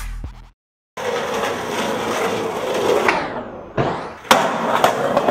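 Hip-hop music fades out, then after a short silence a skateboard rolls on concrete, the tail pops and, about half a second later, the board lands hard at the bottom of a concrete stair set.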